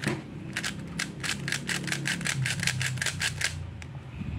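Plastic 3x3 Rubik's cube, its centre caps removed, having its layers turned quickly by hand: a rapid run of sharp clicks, about five a second, that stops about three and a half seconds in.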